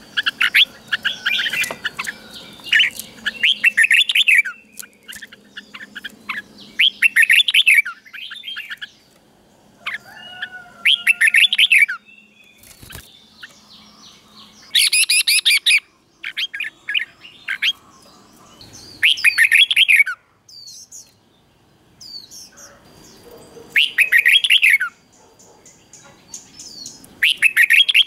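Red-whiskered bulbul singing: short, rapid phrases of about a second each, repeated every two to four seconds, with fainter high chirps in between.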